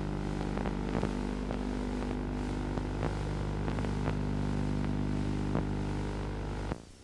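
Steady electrical hum of several stacked pitches with scattered crackling clicks, the sort of buzz a blank video signal leaves on an old tape recording. It cuts off abruptly shortly before the end.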